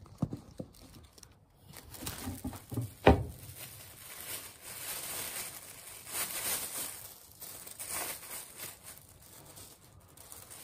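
Thin disposable plastic gloves crinkling and rustling as they are pulled onto the hands, with one knock about three seconds in.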